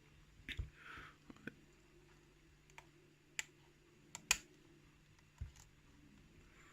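Lock pick and tension wrench working the pins of a heavily modified challenge lock core: scattered faint clicks, the sharpest about four seconds in, as the picker fights deep false sets.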